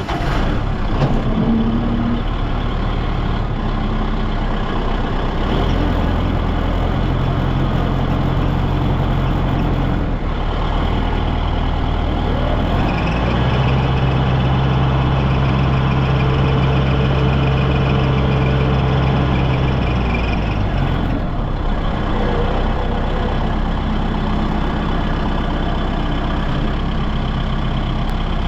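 A vehicle engine running loudly and steadily, its speed changing up and down several times.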